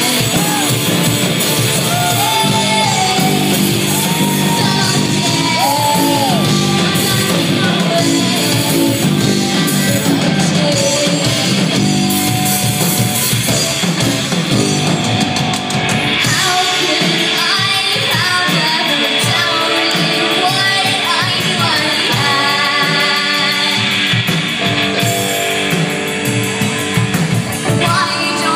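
Live rock band playing loud, with electric guitar, bass guitar, drums and a singer singing and yelling. The low end thins out about halfway through.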